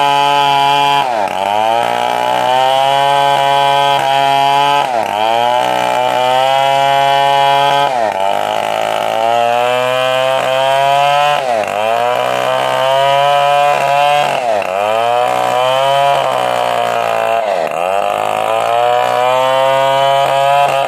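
Stihl chainsaw running at high revs while cutting a coconut palm trunk. Its engine pitch dips sharply and climbs back about every three to four seconds, as the saw is loaded in the cut or the throttle is eased and reopened.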